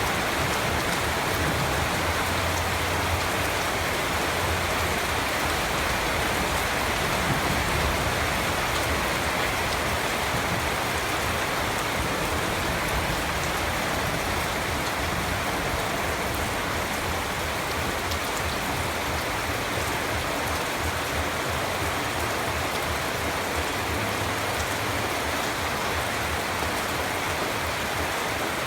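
Steady rain falling and pattering on surfaces, an even hiss of many drops with no breaks.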